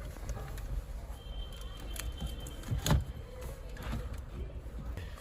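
A few sharp clicks and knocks from handling dashboard parts as the original CD head unit is worked out of the dash, over a low background rumble; the loudest knock comes about three seconds in.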